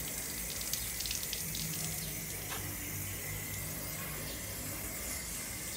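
Water running steadily from a tap and splashing over a chicken's feathers as it is washed by hand.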